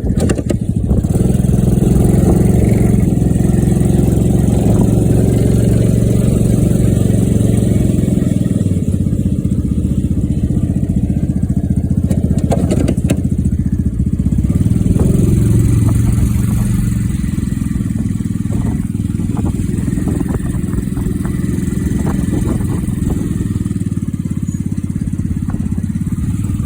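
Mini Jeep tug's small engine running under load while moving an airplane. It is louder for the first several seconds and again briefly in the middle, then runs steadier and a little quieter.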